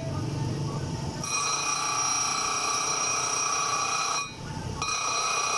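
Power tool grinding steel: a steady high metallic whine over a rough rumble, which starts about a second in and breaks off for about half a second near the end.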